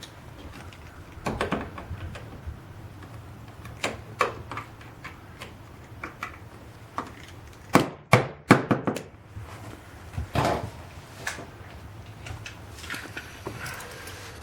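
Scattered knocks and taps as a door and its hinge are handled while a thin cardboard shim is fitted behind the hinge leaf, with a cluster of sharper knocks about eight seconds in.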